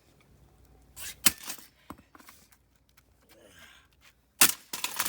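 Sledgehammer striking a bicycle's metal frame: two sharp hits about a second in, a lighter knock shortly after, and a loud hit near the end.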